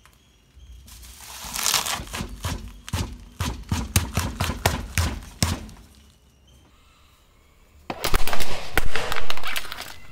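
Car tyre crushing a white radish: a rising crunch, then a quick run of sharp cracks and snaps for about three seconds. After a short pause, a sudden burst of crackling and cracking as a hard pink plastic toy breaks under the tyre.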